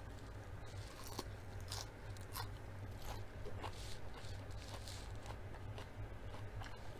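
Close-up chewing of crisp salad leaves: irregular wet crunches and mouth clicks, a few a second, over a low steady hum.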